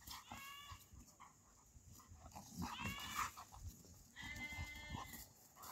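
Goats bleating faintly in a grazing flock: three separate calls, the last one the longest.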